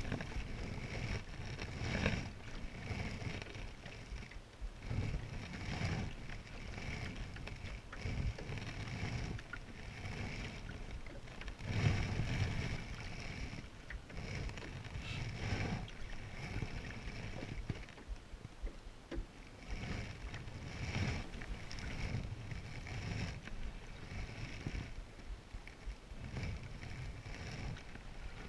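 Paddle strokes dipping and pulling through the water beside a Selway Fisher Wren canoe, an irregular swish and splash every second or two, with water moving along the hull.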